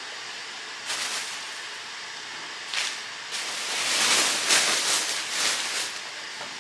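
Thin plastic shopping bag rustling and crinkling as it is handled, with short rustles about a second in and just before the three-second mark and louder, longer crinkling through the middle to near the end.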